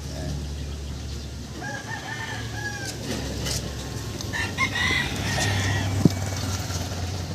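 Two pitched bird calls, the second about four and a half seconds in and louder, over a low steady hum, with a sharp click about six seconds in.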